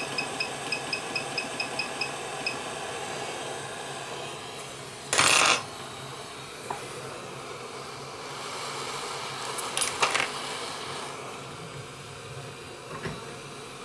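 Hot-air rework station: a quick run of short high beeps, about five a second, for the first two and a half seconds as the temperature is set, then the steady hiss of its hot-air blower, broken by a loud brief rush of noise about five seconds in and another about ten seconds in.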